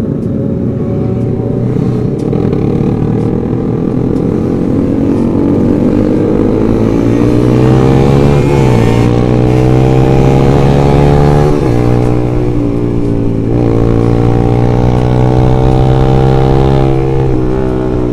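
Single-cylinder four-stroke engine of a Yamaha Jupiter MX underbone motorcycle running under way, heard from the rider's position with wind rushing past. Its pitch climbs steadily over the first several seconds, then dips briefly three times as it pulls along.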